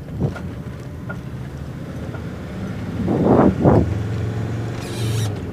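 Engine hum and road noise of a vehicle driving, heard from inside the cab, with two short louder surges a little past three seconds in.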